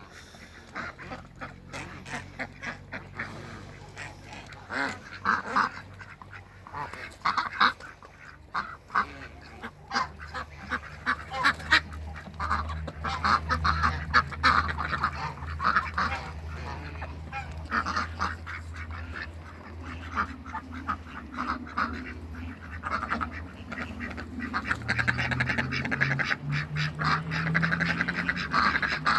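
A group of ducks quacking over and over, with many short calls overlapping throughout. A steady low hum runs underneath and rises in pitch near the end.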